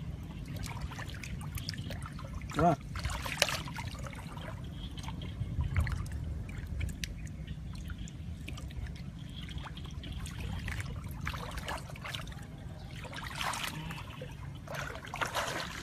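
Shallow muddy water trickling and splashing as someone wades through it, with scattered small splashes throughout. A brief pitched sound stands out about three seconds in.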